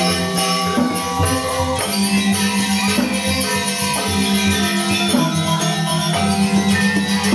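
Balinese gamelan music: bronze metallophones and gongs playing ringing pitched notes, with fast repeated notes in the low range and a jingling shimmer of small cymbals on top.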